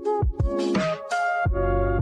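Electronic background music with a steady beat: drum hits over held synth chords, with a deep bass coming in near the end.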